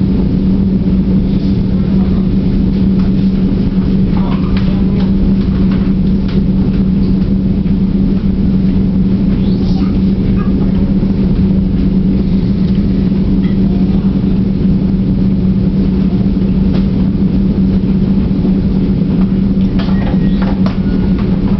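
Steady hum of a stopped diesel commuter train, heard from inside a passenger car: a constant low tone over a rumble that never changes, with a few faint squeaks and clicks.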